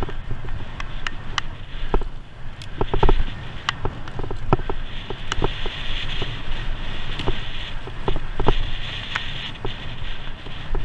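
Cyclocross bike riding fast over a bumpy dirt and gravel track, heard from a camera mounted on the bike. Wind and tyre noise make a steady low rumble, with frequent irregular rattles and knocks as the bike jolts over stones and ruts.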